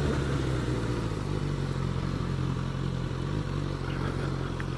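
Suzuki GSX-S1000 motorcycle's inline-four engine running at a steady pitch, with small shifts in pitch, while riding, under a haze of wind and road noise.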